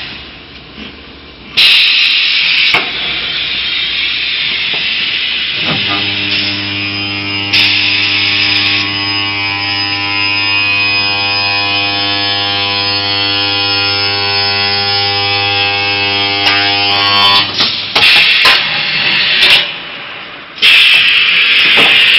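Semi-automatic seam welding machine buzzing steadily for about twelve seconds while it welds the seam of a rolled steel cylinder. Loud bursts of hissing come before the buzz starts and again after it stops.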